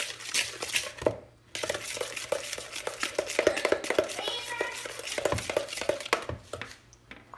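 Spoon beating eggs and sugar by hand in a plastic bowl: quick, rapid clicking strokes against the bowl. The strokes pause briefly about a second in and stop shortly before the end.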